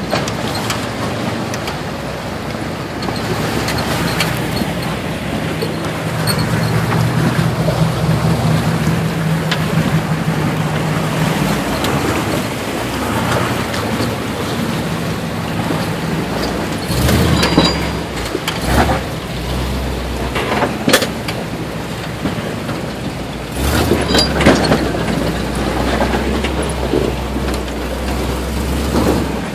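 Off-road vehicle's engine running at a crawl through a rocky creek crossing and up onto boulders, with water rushing around it through the first half. In the second half come several sharp knocks of tyres and underside on rock, with the engine working harder at each climb.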